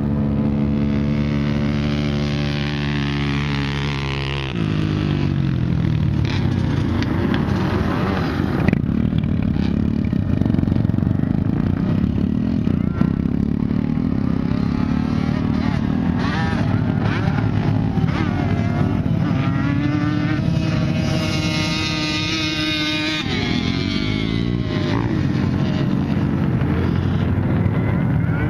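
Quad (ATV) engines running hard on a sand dune climb: a steady engine note that drops away about four seconds in, then engines revving with pitch rising and falling, and an abrupt change in the sound about three-quarters of the way through.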